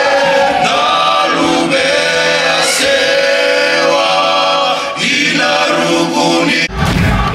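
A group of male voices singing a slow song in harmony. About six and a half seconds in, a sudden loud burst cuts across the singing.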